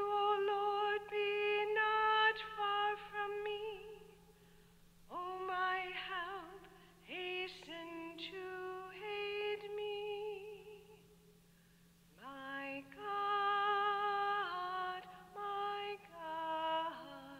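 A female cantor sings the responsorial psalm solo into the microphone. She sings long, held notes with vibrato in three phrases, with short pauses between them.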